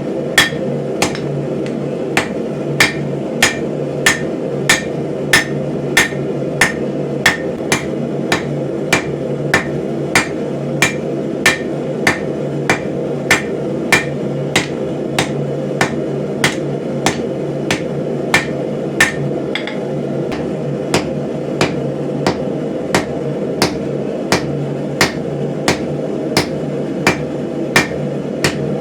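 Hand hammer striking steel on an anvil in a steady forging rhythm, about one and a half blows a second, over a steady low hum.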